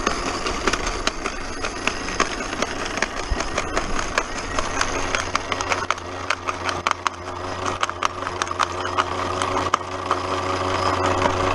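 Small homemade jaw crusher running on its electric motor with a steady low hum, while stones crack and rattle between its ribbed jaws in many irregular sharp clicks.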